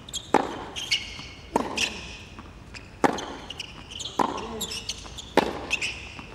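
Tennis rally on a hard court: the ball is struck back and forth by rackets, five sharp hits about every second and a quarter.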